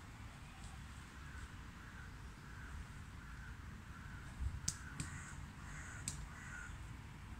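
A bird calling over and over in short, evenly spaced calls, about two a second. Three sharp taps of hands striking the tree trunk come through past the middle.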